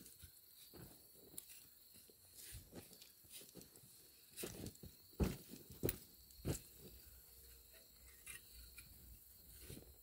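Bare hands digging and scraping through loose, dry soil to unearth sweet potatoes: soft crunching and rustling of dirt, with a few louder crunches and knocks around the middle.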